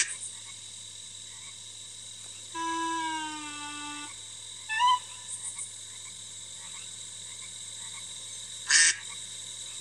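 Animal calls made for a duck and a frog puppet: a held call falling slightly in pitch about two and a half seconds in, a brief rising chirp near five seconds, and a short sharp call near nine seconds, over a steady background hiss.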